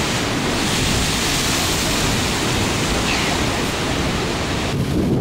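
Loud, steady rush of wind and breaking surf, with the wind buffeting the microphone. It cuts off abruptly near the end.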